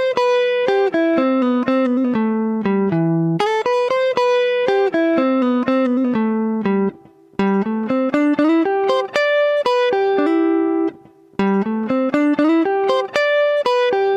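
Background music: a clean plucked-guitar melody of separate, ringing notes playing a repeating phrase, with brief pauses twice.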